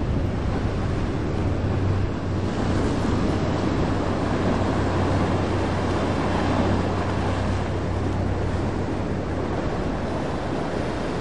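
Large sportfishing yacht running at speed: a steady low diesel engine drone under the rush of its wake and spray, with wind buffeting the microphone. The water noise grows stronger about two seconds in, and the drone weakens near the end.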